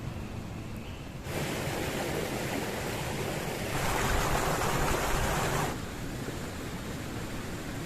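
Strong wind rushing through pine trees in gusts, with wind buffeting the microphone; it swells about a second in, is strongest between about four and six seconds, then eases.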